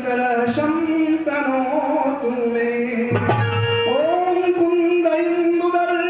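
Devotional singing with tabla accompaniment. A long note is held through the second half.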